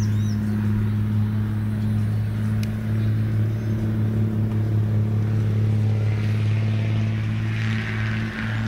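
A steady low motor hum, two level tones one above the other, such as an idling engine; a short hiss rises near the end.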